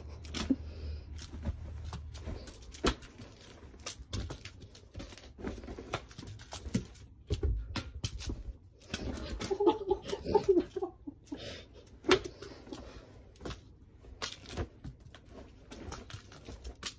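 Abyssinian cat jumping and landing on a duvet-covered bed: scattered soft thumps, taps and rustles of paws and bedding at an uneven pace.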